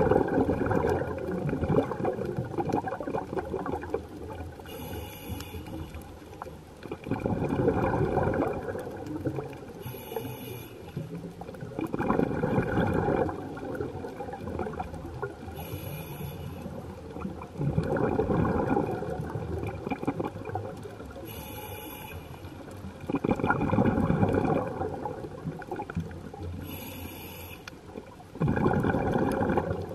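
Scuba diver breathing through a regulator underwater: a short hissing inhale, then shortly after a louder burst of rumbling exhaled bubbles, repeating about every five to six seconds.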